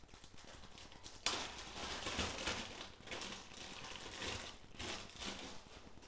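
Faint rustling and small clicks of hands rummaging for the new rubber seals for a boiler circulation pump, starting about a second in and thinning out after the first few seconds.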